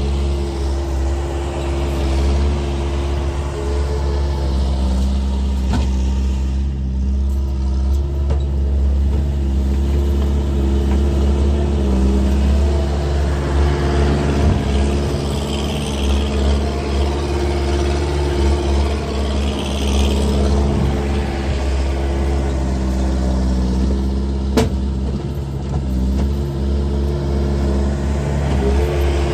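Skid steer engine running loud with no proper exhaust, its note rising and falling with the load as it works. A sharp knock comes once late on.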